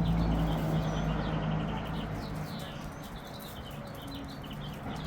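Small birds chirping in quick repeated trills, over a low steady hum that fades after about two seconds.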